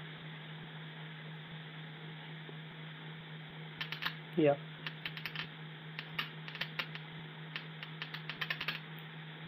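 A steady low hum, with a run of quick, light clicks and taps starting about four seconds in and lasting some five seconds.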